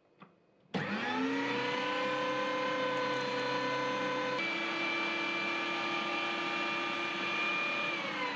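Electric 2000 W meat grinder switching on with a click, then its motor whine rising quickly and running steadily as it grinds pork through an 8 mm plate. Its note shifts about halfway through and starts to fall near the end.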